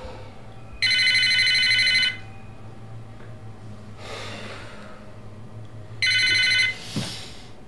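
Mobile phone ringing with a warbling electronic ring: one ring of over a second, then a shorter second ring that cuts off abruptly, followed by a brief knock.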